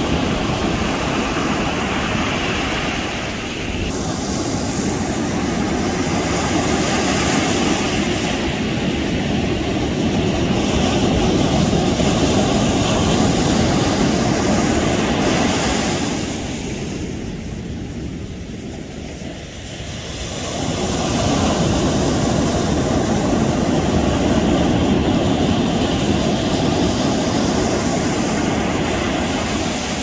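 Ocean surf breaking and washing up a sandy beach, a steady loud rush that eases off a little past the midpoint and swells again about two-thirds of the way through.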